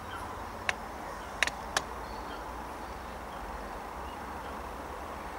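Steady low rumble with faint background hiss, broken by four sharp clicks between about half a second and two seconds in, two of them close together.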